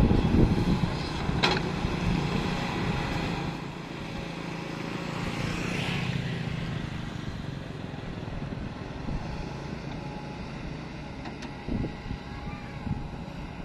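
Kobelco hydraulic excavator's diesel engine running as it digs mud, louder and rougher for the first few seconds and then steadier, with a sharp knock about a second and a half in.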